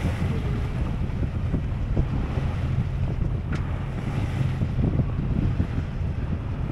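Wind buffeting the microphone on the deck of a sailing yacht at sea, with water washing past the hull, in uneven gusts.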